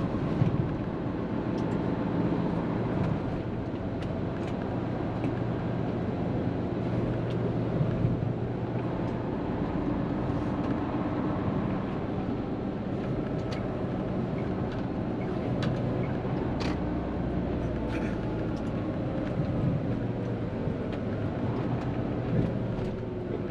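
Hino tractor-trailer truck heard from inside its cab while cruising on an expressway: a steady engine drone and road noise, with a few scattered sharp clicks and rattles.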